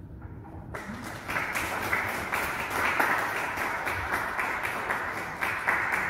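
Audience applauding, a dense patter of many hands clapping that starts about a second in, right after a poem ends.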